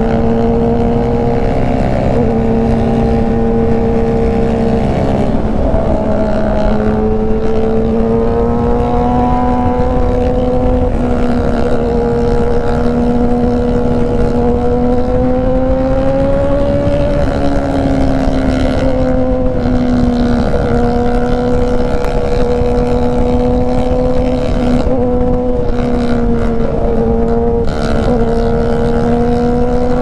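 2019 Yamaha R6 inline-four through an Austin Racing exhaust, running steadily at cruising speed, its pitch rising and dipping slightly with small throttle changes.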